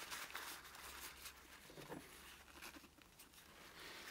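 Faint, irregular scratchy scraping: a screwdriver working old black grease and dirt out of the inside of an old Bahco Model 31 adjustable spanner's body.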